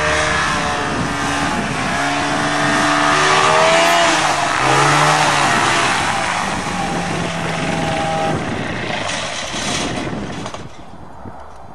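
Small ski-equipped propeller plane's engine running at high power with its pitch rising and falling, over a steady rush of propeller noise, as it powers the plane out of sticky mud. The sound drops away about ten and a half seconds in.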